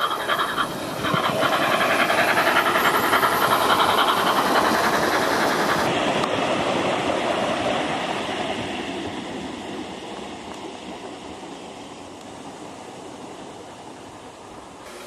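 O gauge model LNER A4 Pacific running with DCC steam sound: simulated steam exhaust with the train's wheels rolling on the rails. Loud for the first several seconds, then fading steadily as the train moves away.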